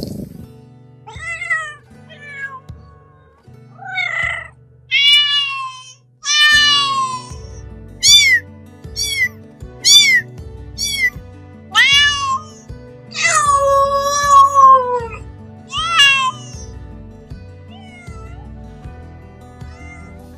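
A cat meowing over and over: a dozen or so short, high-pitched meows, with one longer drawn-out meow about thirteen seconds in, over background music.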